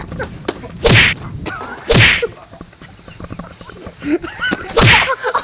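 Three loud whooshing smacks of boxing-glove punches, about a second in, two seconds in and near the end.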